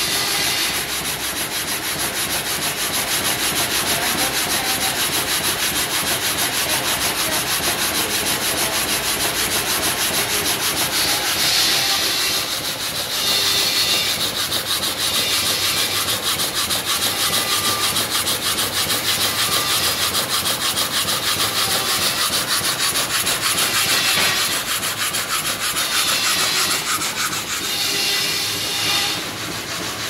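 Horizontal log sawmill's saw cutting lengthwise through a large tree trunk: a loud, steady sawing noise of the blade running through the wood.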